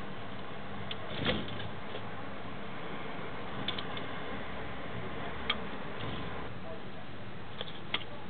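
Great tit pecking and hopping on a plastic seed tray: a few sharp, separate clicks and taps over a steady hiss, the loudest about a second in.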